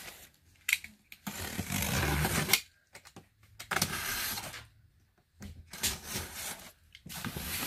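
Box cutter slitting the packing tape along the seams of a cardboard shipping box: a sharp click just under a second in, then three drawn-out scraping cuts with short pauses between them.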